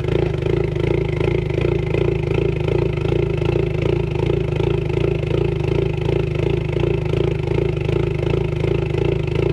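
Turbocharged four-cylinder Ford Mustang EcoBoost engine idling on a ghost cam tune, heard at the exhaust tips with the active exhaust valves open. It makes a steady, rhythmic lopey chop, like a big-cam engine at idle.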